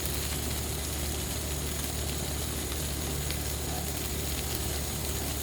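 Ninja Woodfire outdoor grill running with a steady low hum and an even hiss, with chicken wings sizzling on the grill plate.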